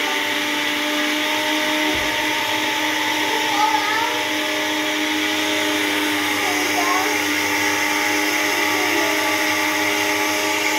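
Countertop blender running steadily, its motor churning milk and Oreo cookies into a milkshake.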